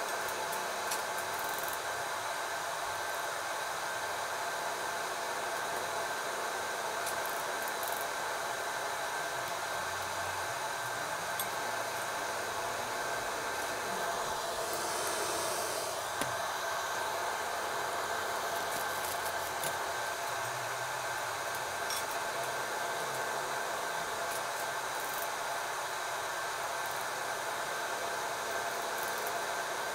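Hot oil in a wok hissing steadily as kembang goyang rosette cookies deep-fry, the sizzle swelling for a couple of seconds about halfway through, with one sharp tap just after.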